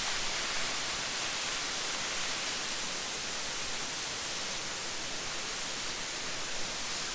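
Lick Creek Falls in heavy flow: a steady, unbroken rush of falling water.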